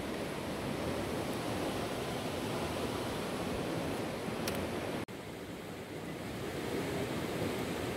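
Steady rushing noise, even and without pitch, broken by a sudden short drop about five seconds in.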